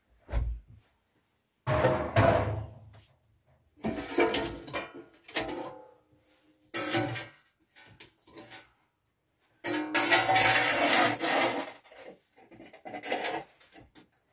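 An enamel basin and other things being handled, set down and scraped on a wooden floor: five bursts of clattering and rubbing, a second or two each, with a short ringing tone near the middle.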